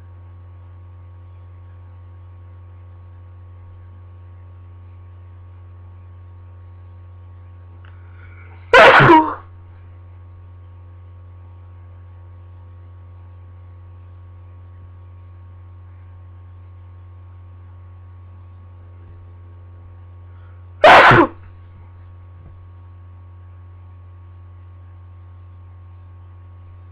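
Two loud sneezes from a person with a cold, about twelve seconds apart, each over in about half a second, over a steady low electrical hum.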